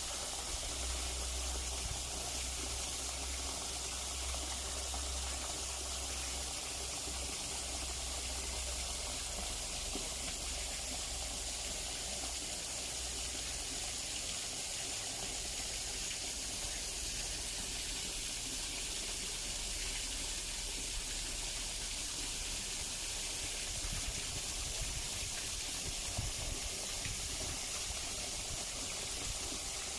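Waterfall rushing in a steady hiss of falling water, with a low rumble in the first few seconds.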